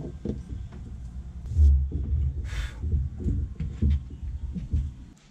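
Dull knocks and thumps with light clicks as an autopilot controller and a small screwdriver are handled on a boat's dash console, with a short hiss about two and a half seconds in. It stops abruptly near the end.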